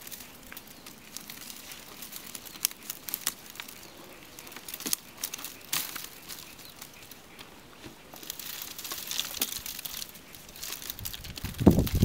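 Dry grass stalks rustling and crackling as they are handled and tied, with scattered small clicks and snaps of stems; a louder rustle and knock near the end.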